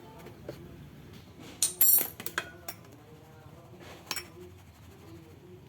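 Metal kitchenware clinking and knocking against a bowl: a handful of sharp taps, loudest about two seconds in, with a few lighter clinks after.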